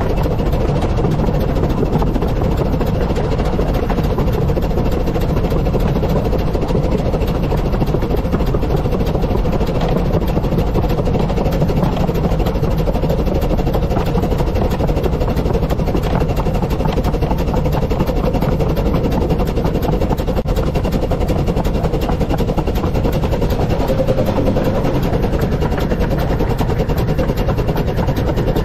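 The 15-inch gauge steam train hauled by River Mite running along the line: a steady, unbroken rumble of the train underway, heaviest in the low end.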